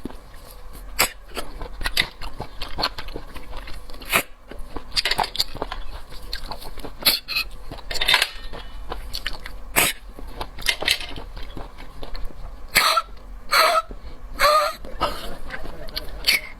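Close-miked sounds of sea snails being eaten: sharp clicks and taps from shell and mouth, with several louder noisy mouth bursts in the second half.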